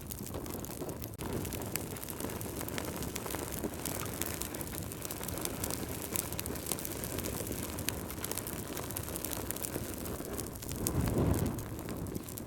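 Wood fire crackling in a fireplace: many small sharp pops over a steady low rushing of the flames, which swells briefly near the end.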